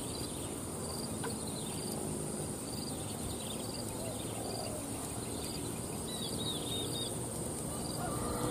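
A chorus of insects droning steadily at a high pitch, with a short high chirp repeating about every two-thirds of a second.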